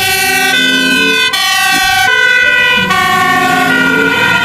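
Electronic fire truck siren sound, loud, stepping between set pitches rather than gliding, in short phrases that repeat about every second and a half.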